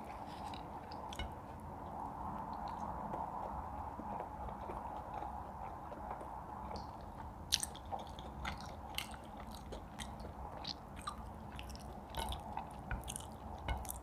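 Close-up eating sounds: chewing and biting, with sharp crunchy clicks coming thick from about halfway through, over a steady background hum.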